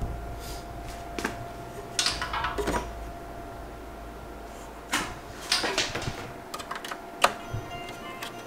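Irregular clicks, taps and short rattles of hardware being handled at the back of a Mac Pro tower's metal case, as metal PCIe slot brackets and a USB 3 expansion card are fitted. The sharpest click comes just past seven seconds. Under it runs a steady faint hum.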